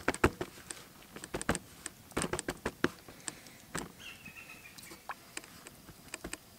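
Hands patting and pressing a fish fillet into dry batter mix on a plate: irregular soft taps and clicks in small clusters.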